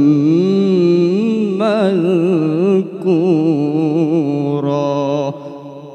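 Male Quran reciter chanting in the melodic tilawah style through a microphone, closing the verse on "shay'an madhkura" with long, wavering ornamented held notes. There is a short break for breath about three seconds in, and the voice ends about five seconds in, leaving a fading echo.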